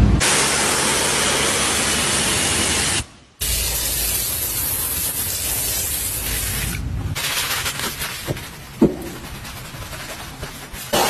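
Steady hiss of a pressure-washer foam spray that cuts out briefly about three seconds in, then resumes as snow foam goes onto a car's door sill. Later it gives way to softer scrubbing with two sharp knocks.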